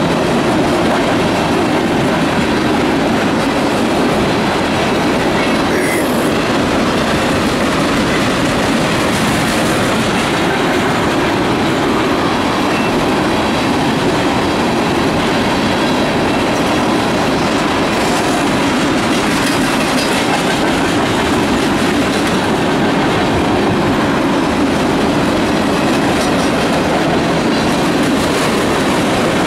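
Freight train of tank cars rolling past close by: a steady rumble of steel wheels on the rails.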